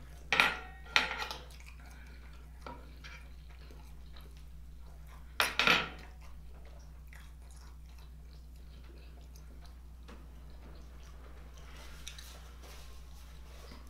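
Utensils and food clattering on wooden serving trays during a meal: two sharp knocks in the first second or so and a louder clatter about five and a half seconds in, over a low steady hum. Near the end a paper napkin rustles as hands are wiped.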